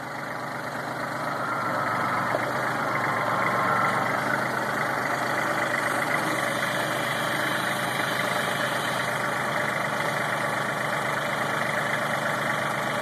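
Kubota L4400 tractor's four-cylinder diesel engine running, getting louder over the first two seconds and then holding steady.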